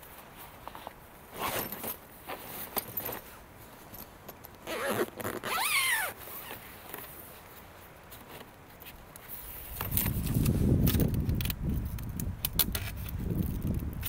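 Handling of camera gear close to the microphone: scattered small clicks and a zipper pulled in two quick strokes about five seconds in. From about ten seconds there is louder, lower handling noise with bumps.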